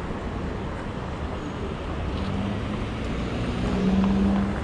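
City street traffic noise, with a motor vehicle's steady low engine hum growing louder from about halfway through and peaking near the end as it passes close.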